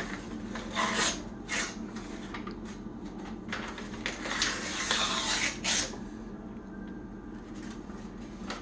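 Paper wrapper being peeled and torn off a cardboard refrigerated-dough can in a series of rasping, rustling strokes, which die down after about six seconds.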